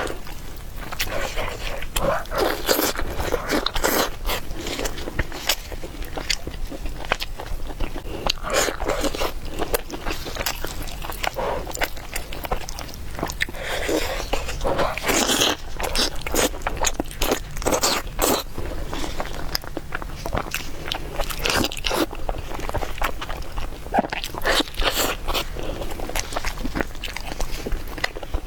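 A person eating: repeated biting and chewing, with many small clicks and crunches throughout.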